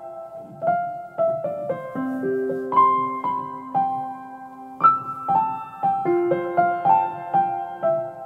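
Background piano music: a slow, gentle melody of single struck notes, each ringing out and fading, a couple of notes a second.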